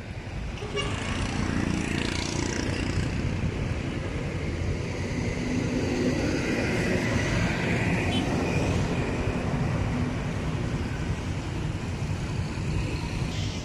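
Steady road traffic noise: passing cars and engines, heard as a continuous low rush.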